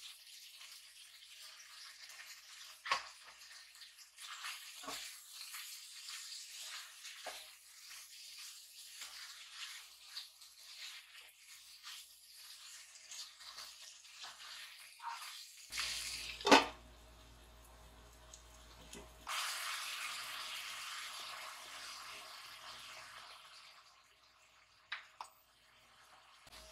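Chicken and carrots sizzling and bubbling in a sauce in a non-stick pan, with a plastic spatula knocking against the pan a few times, loudest about 16 seconds in. The hiss swells again for a few seconds near the end.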